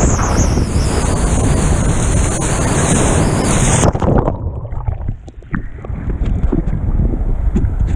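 Rushing whitewater with wind buffeting the microphone as a stand-up paddleboard rides broken surf. About four seconds in the sound turns suddenly muffled as the microphone goes underwater in a fall, then gurgling and small splashes follow as it comes back up through the foam.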